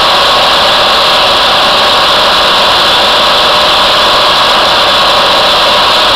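Kubota B2110 compact tractor's three-cylinder diesel engine driving a PTO-powered Posch sawbench, engine and saw running steadily and loudly.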